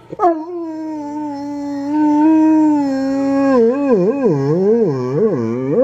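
Large dog howling: one long held note that starts suddenly, then from about halfway its pitch swings up and down about twice a second in a wavering wail.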